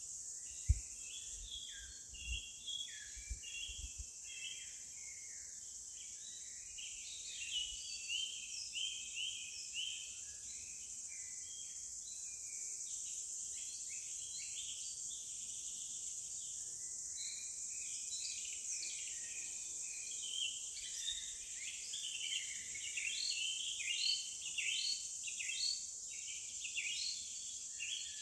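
Forest ambience: many birds chirping in quick overlapping calls over a steady high-pitched insect drone. A few low thumps sound in the first few seconds.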